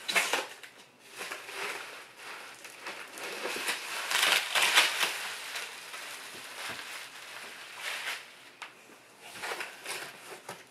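Bubble wrap and plastic packing crinkling and rustling as it is pulled out of a cardboard shipping box, in uneven handfuls, loudest about four to five seconds in, with cardboard flaps scraping.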